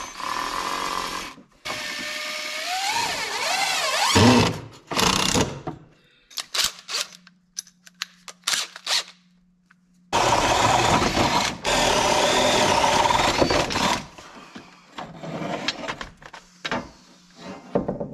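Cordless drill with a spade bit boring into wood, in several runs: a short one at the start, a longer one with the motor pitch rising and falling, a few short bursts, then a steady run of about four seconds, starting about ten seconds in.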